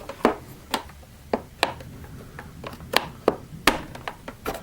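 Sharp clicks and knocks of a screwdriver and hard plastic parts on a Miele S5210 vacuum cleaner's casing as it is taken apart, about eight taps at uneven spacing.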